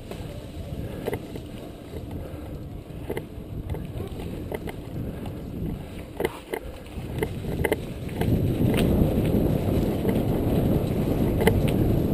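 Mountain bike riding over a rough dirt road, heard from a camera mounted on the bike: steady tyre rumble and wind on the microphone, with frequent short clicks and rattles from the bike over bumps. The rumble grows louder about eight seconds in.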